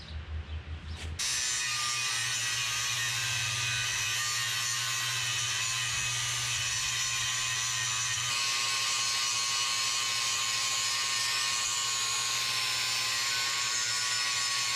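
Angle grinder with a thin cut-off wheel cutting through a forge-welded stainless and high-carbon steel billet clamped in a vise: a steady, high whine that comes in suddenly about a second in and shifts slightly about eight seconds in.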